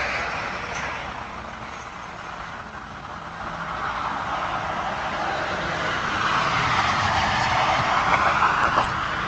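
Rushing noise of a passing vehicle, swelling from about three seconds in and easing off slightly near the end.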